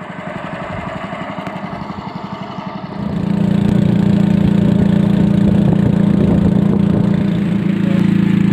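Small wooden boat's engine running with a steady pulsing beat, heard at a distance at first; about three seconds in it becomes much louder and steadier, heard from on board the boat.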